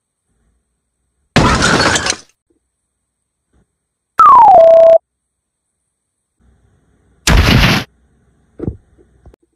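Added cartoon sound effects: a short smashing, shattering burst, then a loud tone that slides down in pitch and holds steady for about half a second, then an explosion-like crash burst, with a few faint small sounds near the end.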